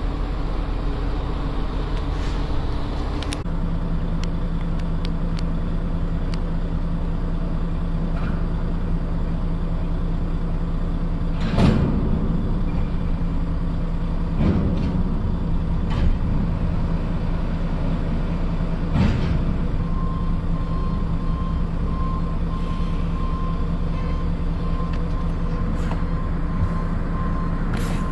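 Heavy diesel engines of lorries and container-handling machines running steadily, with a few sharp knocks about twelve, fourteen and nineteen seconds in. A rapid warning beeper sounds from about twenty seconds in.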